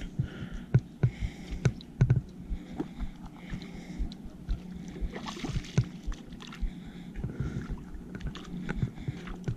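Irregular clicks and knocks from a spinning rod and reel being handled and cranked while a hooked trout is reeled toward the bank.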